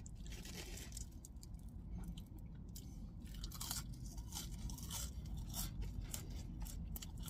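A person chewing crispy French fries: faint, scattered crunches and mouth sounds.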